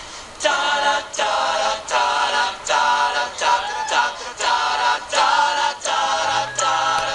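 Male a cappella group singing a song's opening in chords, in short repeated beats about one every three-quarters of a second, starting about half a second in.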